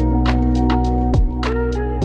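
Background music with a steady beat: deep kick drums that fall in pitch about every second and a half, quick hi-hat ticks between them, over sustained synth tones.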